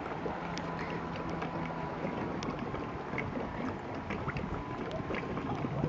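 A boat motor running steadily under a wash of wind and water noise, with a faint steady whine.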